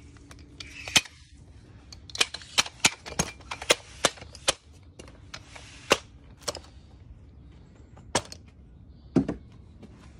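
Aluminium telescopic ladder (Acrohome 2.6 m) being handled and extended, giving a string of sharp clicks and clacks as its sections slide and lock. Several come close together in the first half, then a few more spaced out.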